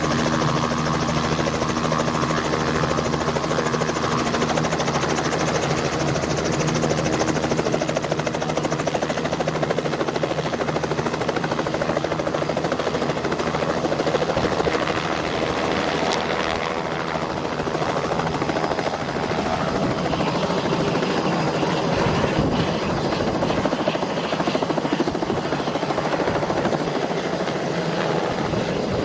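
Robinson R66 turbine helicopter running with its rotors turning at speed: a steady engine and rotor sound that goes on unbroken, changing character about halfway through as it gets ready for takeoff, and lifting off near the end.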